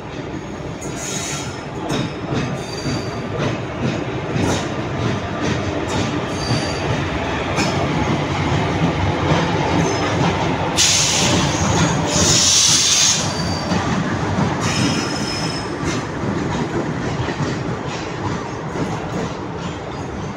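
Passenger train coaches rolling along the track, wheels clicking over rail joints with a steady rumble. A loud high hiss from the train lasts about two seconds, starting around eleven seconds in.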